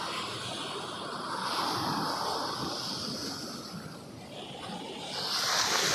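Sea waves washing on the shore, swelling and fading, with a wave building louder near the end.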